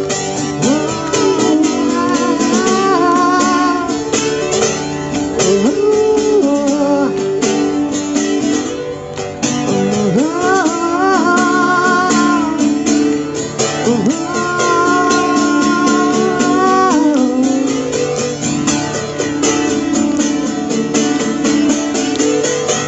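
Live band playing a guitar-led instrumental passage: long held notes with vibrato over strummed chords.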